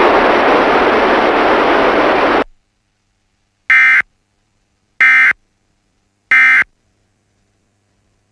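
A loud hiss of static for about two and a half seconds that cuts off abruptly. After a short silence come three short electronic data bursts about 1.3 seconds apart: the Emergency Alert System SAME end-of-message tones that close an alert.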